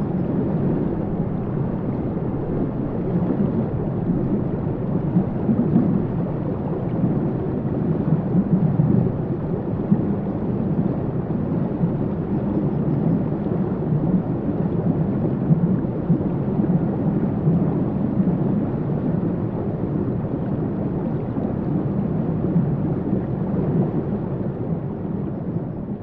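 Steady low rumbling wash of underwater ambience, with no distinct individual sounds.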